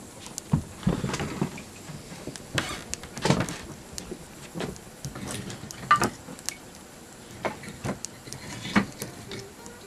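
Small wood fire of kindling and sticks crackling in the firebox of an antique wood cook stove, with irregular sharp pops, a few of them louder and longer.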